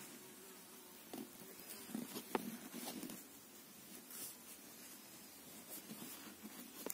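Faint clicking and scratching of knitting needles working wool yarn, a few irregular clicks with a busier cluster about two to three seconds in.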